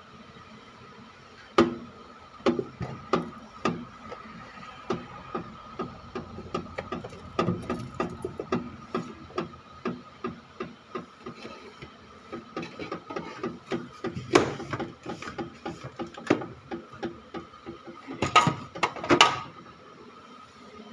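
Irregular knocks and clatter of fridge shelves, trays and containers being handled and wiped during cleaning, denser in two bursts near the end, over a faint steady tone.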